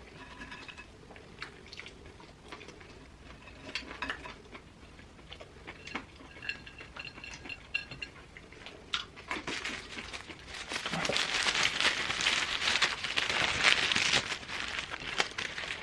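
Wet chewing and small mouth clicks. Then, about ten seconds in, several seconds of loud, dense crinkling of food wrapper or packaging.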